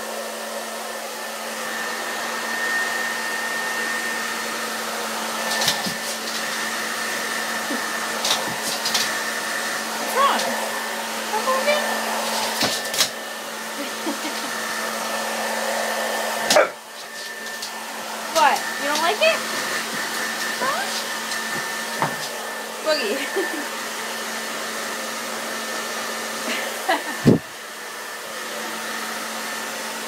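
Hair dryer running steadily: a constant blowing hiss with a steady high whine. A few knocks and short sliding pitched sounds come over it, and there is one loud knock near the end.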